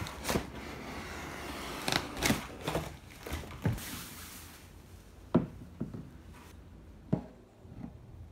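Cardboard shipping box being handled and opened, then a plastic bag crinkling as an acoustic guitar is slid out of it. Scattered sharp knocks and taps come thickly in the first half and more sparsely later.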